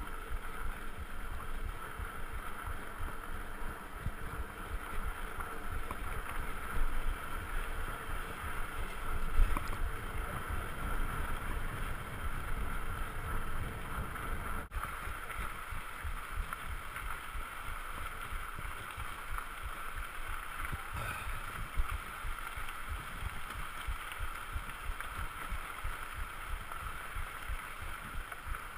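Wind buffeting an action camera's microphone on a mountain bike riding fast down a dirt road, with the rumble and small knocks of the bike and tyres over the rough surface.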